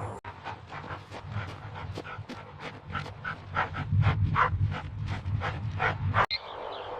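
A dog panting quickly and rhythmically, about three to four breaths a second, stopping abruptly near the end.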